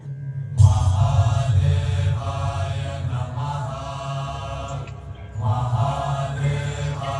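Mantra chanting over a steady deep drone. The chant comes in about half a second in, breaks off briefly near five seconds, and resumes.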